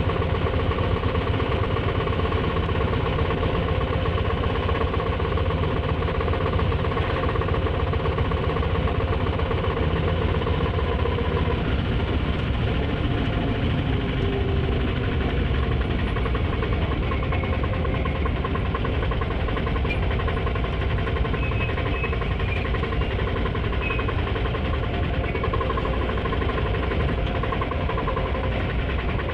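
Auto rickshaw engine idling steadily while stationary, a rapid even pulsing that holds the same level throughout.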